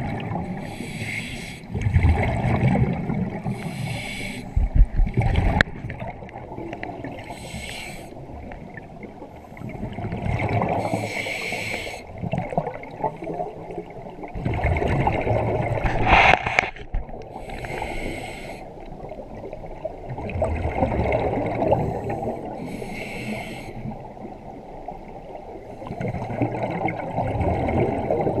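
Scuba breathing through a regulator underwater: a hissing inhalation followed by a long bubbling exhalation, repeating about every five to six seconds.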